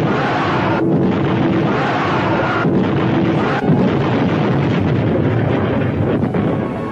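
Film sound-effect explosions: a continuous dense blast and rumble, with fresh blasts starting about a second in, near three seconds and again shortly after.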